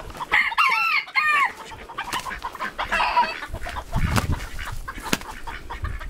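Chickens clucking and squawking, a quick run of short rising-and-falling calls in the first second and a half and another call about three seconds in, over the scuffling and wing-flapping of two game roosters sparring.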